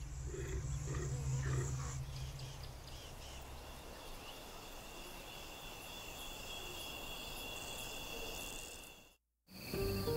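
A leopard vocalizing with a few low, rhythmic grunts over the first two seconds, then a steady chorus of evening insects chirring in high, even tones. The sound drops out briefly near the end.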